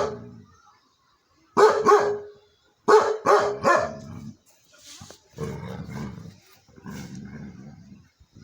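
A dog barking in quick groups: one bark at the start, two more, then three in a row, followed by softer, lower, rough calls for the rest.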